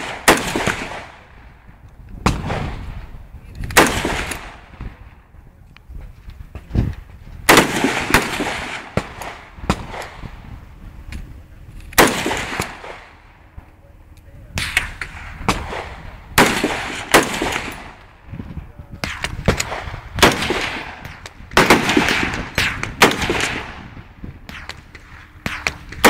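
AR-15 rifle firing single shots, one at a time, at uneven gaps of about one to three seconds. Each is a sharp crack with a short ringing tail.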